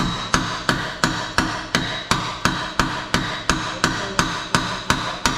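A hammer striking metal in a steady run of about three blows a second, each blow ringing.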